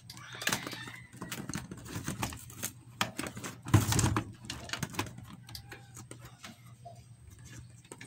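Irregular small clicks and taps from handling multimeter test leads and wires on a microwave oven's high-voltage capacitor, with one louder bump a little under four seconds in.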